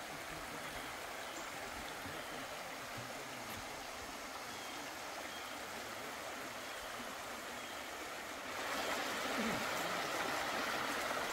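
Shallow creek running over a rocky bed, a steady rush of water that grows louder about eight seconds in.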